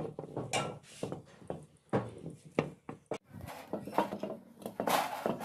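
Irregular knocks and clinks as a cast-iron sewing machine head is handled and set on its base, with cloth rubbing over its lacquered body.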